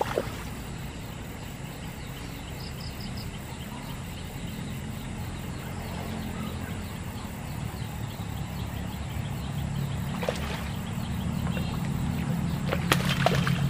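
A low, steady engine drone, growing louder over the last few seconds, with a few sharp clicks and a quick run of four high chirps about three seconds in.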